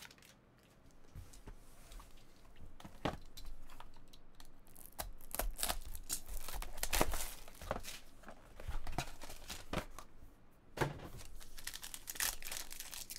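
Cellophane wrap being slit with a box cutter and pulled off a small trading-card box, then a foil card pack crinkling and tearing open. After a quiet first few seconds comes a quick run of crackles and rustles that continues to the end.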